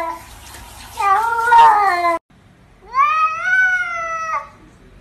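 Domestic cats meowing: a long wavering meow about a second in, then after a short break a longer drawn-out meow that rises, holds and falls, sounding like "I love you".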